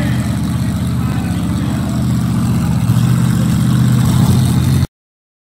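VW Beetle-bodied mega truck's engine running at low revs with a deep, rapid pulse, getting a little louder after about three seconds, then cutting off abruptly near the end.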